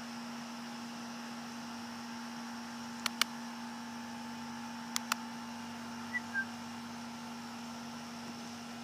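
Steady machine hum with a hiss, broken by two pairs of sharp clicks about three and five seconds in and two short high chirps a second later.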